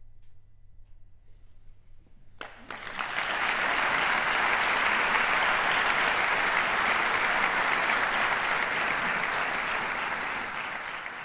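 Audience applauding. The clapping breaks out about two and a half seconds in after a quiet pause, holds steady, and eases off slightly near the end.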